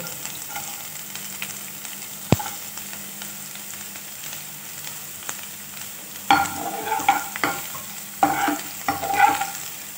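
Chopped garlic and ginger sizzling gently in hot oil in a non-stick kadai, with one sharp knock a little after two seconds in. From about six seconds in, a slotted metal spatula scrapes and stirs through the pan in a run of louder, uneven strokes.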